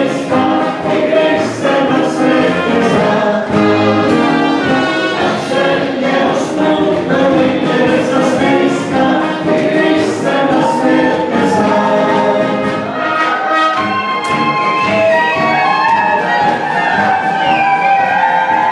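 Brass band music with a steady beat, with voices singing along.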